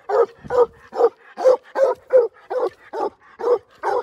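Young coonhounds, a black and tan and a redbone, barking treed at a raccoon up the trunk: a steady run of barks, about three a second.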